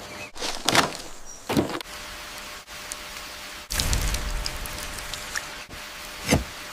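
Boots crunching on the leafy jungle floor, two steps in the first couple of seconds. Then heavy rain falls steadily from a little before the midpoint, with a sharp thud near the end.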